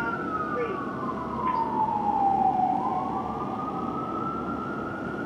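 Fire engine's electronic siren on a slow wail: the pitch falls for about two and a half seconds, then climbs back up over the next two and a half. Steady road and engine noise lies beneath it.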